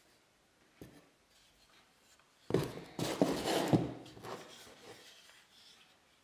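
Antique wooden plow plane being handled: its wooden fence and arms knock and rub against each other and the bench, with a loud burst of clattering and sliding halfway through, after a quiet start with one small knock.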